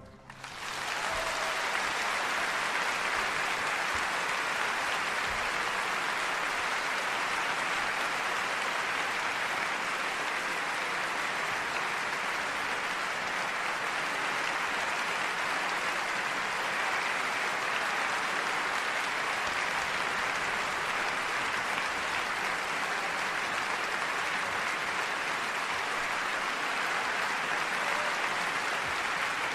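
Applause, continuous and even with no breaks.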